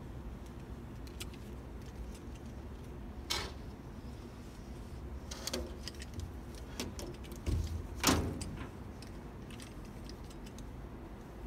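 Rubber locking strip being worked out of a rear-window gasket: scattered small clicks and scrapes, with two louder snaps about three and eight seconds in.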